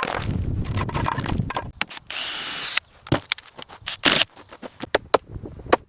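Mechanical work sounds: a low rumble at first, a short steady hiss about two seconds in, then a series of sharp knocks and clicks of tools and parts being handled.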